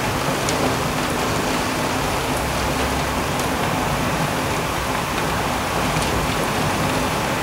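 Heavy rain falling steadily, a dense hiss of rain on leaves and roofs with an occasional sharper drop tick.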